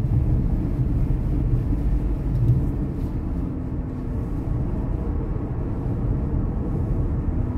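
Steady low rumble of road and tyre noise heard inside a moving car's cabin while cruising.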